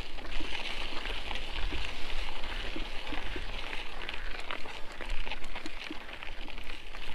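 Mountain bike rolling along a dry dirt trail: tyres crunching over grit and small stones with a constant crackle of small clicks and rattles, over a steady low rumble.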